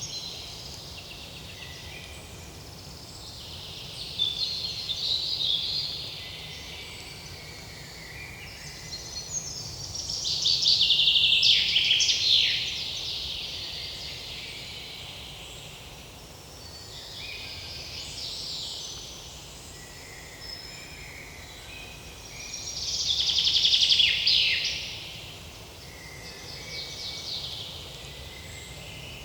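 Songbirds singing and chirping in a forest. Two louder songs, each a couple of seconds of rapid descending trills, come about ten seconds in and again near the end.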